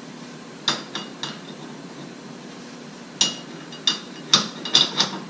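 Steel ball joint press and adapter cups clinking against the wheel hub and stud as they are fitted into place. There are a few sharp metal clinks about a second in, then a quicker run of them near the end.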